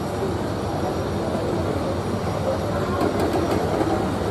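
Passenger train running steadily along the track: a continuous low rumble of wheels and carriages, with a few short clicks of the wheels over rail joints about three seconds in.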